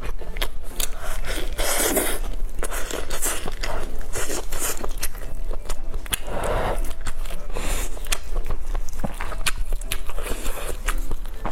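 Close-miked eating of a braised pork knuckle: wet chewing and biting with many sharp mouth clicks. Three louder noisy rushes come about four seconds apart.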